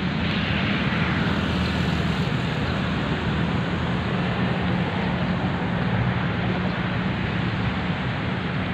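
Steady city street traffic noise, with a passing vehicle's whoosh falling away in the first two seconds.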